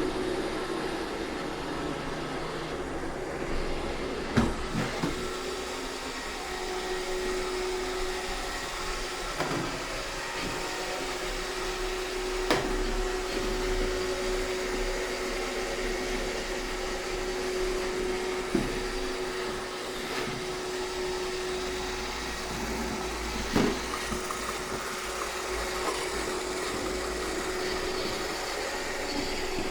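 iRobot Roomba 630 robot vacuum running: a steady motor hum with a constant mid-pitched whine, broken by a sharp knock every few seconds.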